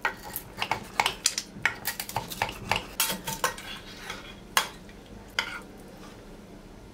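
Metal knife and spatula clicking and scraping against a square glass baking dish while a baked casserole is cut into squares and a slice is worked loose. Rapid clicks for the first few seconds, then a couple of scattered taps.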